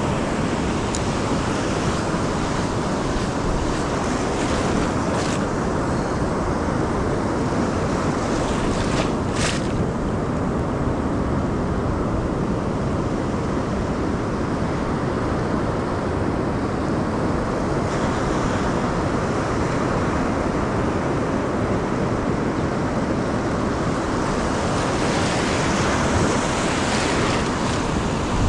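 Ocean surf washing steadily on the beach, with wind buffeting the microphone. A brief click comes about nine seconds in, and a louder wash of surf comes near the end.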